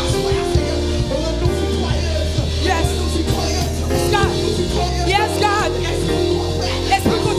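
Live church worship music: a bass line stepping between notes under held chords, with a woman's voice wavering in song over the band near the middle.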